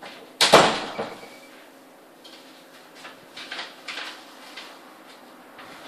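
A sudden loud knock about half a second in, then faint scattered clicks and taps.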